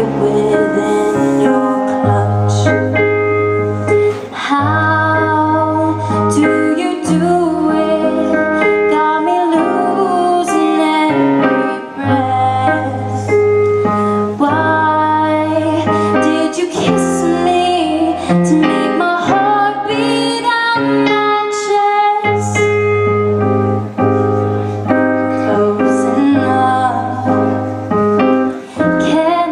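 Pop song music: keyboard and bass with a moving melodic lead line, without sung lyrics.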